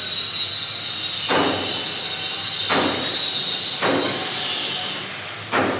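Steady high-pitched whine of a heavy lathe cutting a steel shaft, stopping about four seconds in, with four sharp knocks a little over a second apart.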